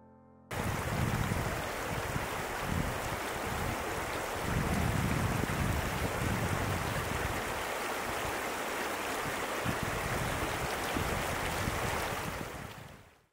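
Shallow, clear mountain river running over a pebble bed: a steady rush of water that starts abruptly about half a second in and fades out near the end.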